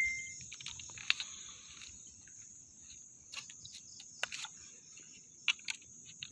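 Steady high-pitched chirring of night insects, with a few faint clicks and taps scattered through it, and the tail of a tone dying away at the very start.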